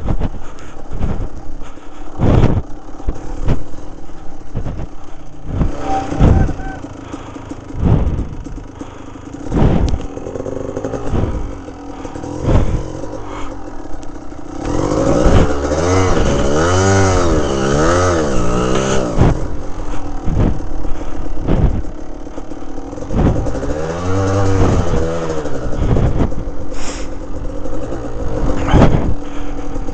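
Kawasaki KDX 200 two-stroke dirt bike ridden over a snowy, rutted track: the engine revs rise and fall in two spells, about halfway through and again a few seconds later, amid repeated knocks and clatter as the bike bounces over the ruts.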